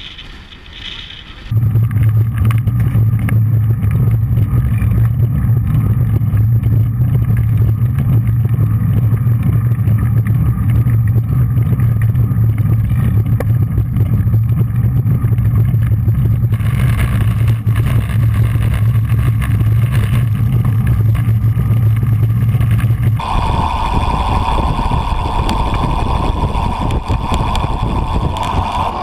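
Loud, steady rumbling wind and road noise on a camera moving along with a group of road cyclists. The sound changes abruptly twice, a little past halfway and again about three quarters of the way in, as the shot changes.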